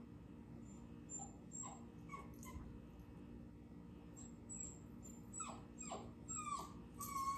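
A dog whimpering faintly in a run of short, high whines, several sliding down in pitch in the second half.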